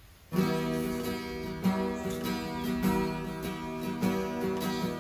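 Acoustic guitar music, strummed chords starting about half a second in, with an accented strum every second or so.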